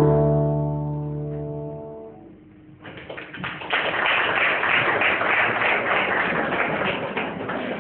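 The held closing chord of a song's accompaniment fades out over about two seconds. Nearly three seconds in, an audience starts applauding and keeps clapping steadily.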